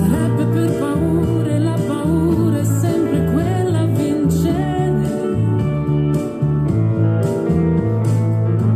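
Background music: a held bass line that steps between notes, under a melody that slides up and down in pitch.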